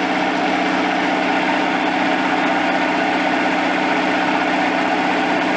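U43102 piston air compressor, belt-driven by an electric motor running on 220 V, running steadily and loudly as it pumps air into its receiver tank.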